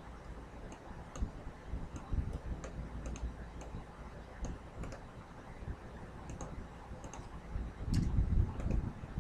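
Computer keyboard keys clicking in light, irregular taps as text is typed, with a soft handling rustle about eight seconds in.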